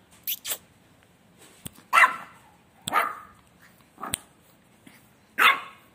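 French bulldog puppy barking: three short, sharp barks spread over a few seconds, with a few light clicks between them.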